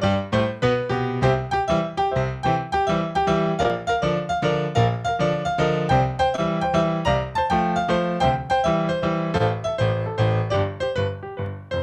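Piano music: a steady flow of quickly struck notes, several a second, with a bass line underneath.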